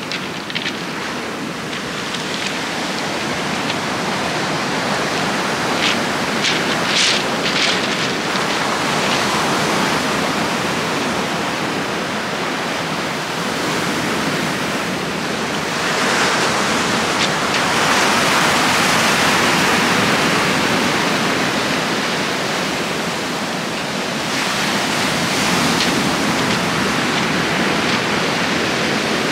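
Surf breaking on a shingle beach: a steady rush of waves that builds to its loudest in a long surge a little past the middle, and swells again near the end. A few brief crackles come about six to seven seconds in.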